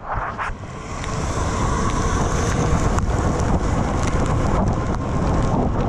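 Wind noise on the microphone of a handlebar-mounted camera on a moving bicycle, with the hiss of tyres on a wet road; it swells over the first second and then holds steady.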